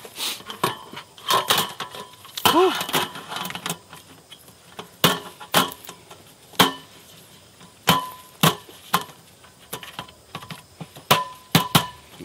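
Roll-up aluminium slat camping table top clattering and clicking as it is unrolled and set onto its folding frame: a run of sharp knocks, some with a brief metallic ring.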